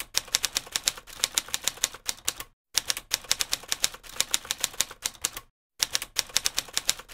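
Typewriter keystroke sound effect: rapid keys at about eight to ten strokes a second, in runs that stop briefly twice.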